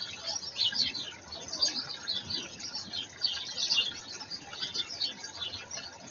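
Small garden birds chirping: many short, high chirps overlapping in quick succession.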